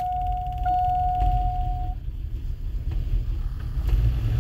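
Starter cranking the freshly rebuilt LQ9 6.0 V8 of a 2002 Cadillac Escalade, heard from inside the cab; the engine does not catch. A dashboard warning chime sounds twice in steady tones over the first two seconds.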